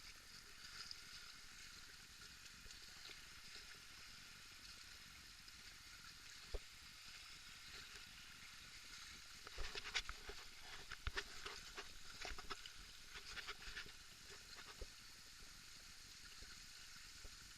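Faint steady rush of river water, with a single sharp click about six seconds in and a cluster of knocks and clicks a few seconds later.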